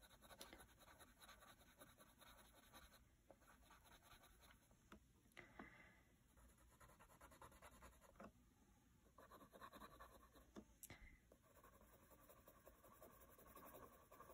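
Colored pencil scratching faintly across a paper coloring card in shading strokes, with a few light ticks.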